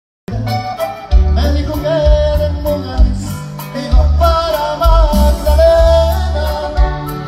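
Norteño band music: an accordion-led melody with singing over a bouncing bass beat. It starts a moment in, after a brief dropout.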